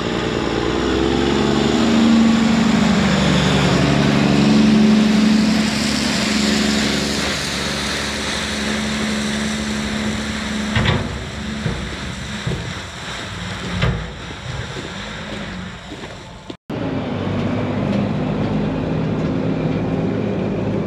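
Diesel engine of a tandem-axle dump truck running steadily as it tailgates gravel out of its raised bed, with two sharp knocks past the middle.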